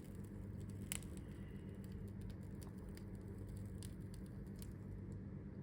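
Faint, scattered small clicks and ticks of a hand-held string hopper press as dough is squeezed through it into thin strands, over a steady low hum; one click about a second in is a little sharper.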